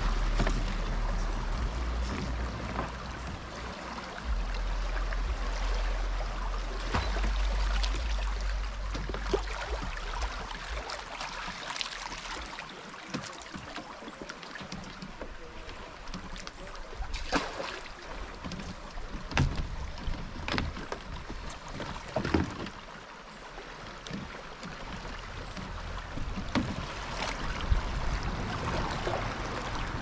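Water lapping and splashing around a bamboo raft moving along a river, with occasional sharp knocks. A low rumble on the microphone covers the first third and comes back near the end.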